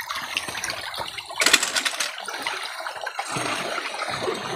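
Running water of a shallow rocky stream, a steady rushing hiss, with a brief loud crackling burst about one and a half seconds in.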